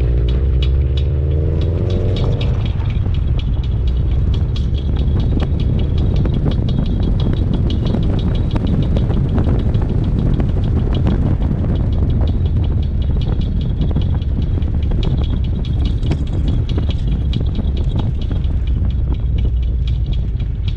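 A 2014 Subaru WRX running with a steady low rumble, over which comes a rapid run of high squeaky ticks and a grinding noise whose source the owner has not been able to find.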